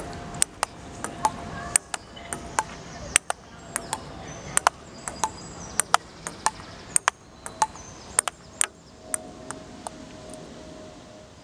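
Ping-pong ball being hit back and forth on an outdoor table tennis table: sharp, irregular clicks of the ball off the bats and the table top, about two to three a second, each with a short ring, over a low steady outdoor background.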